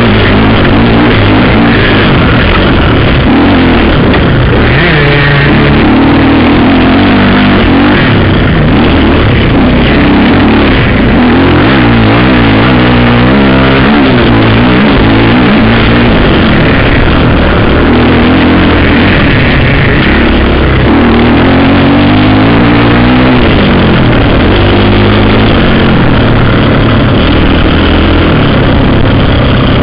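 Dirt bike engine revving up and down, its pitch rising and falling again and again, mixed with a rock music soundtrack.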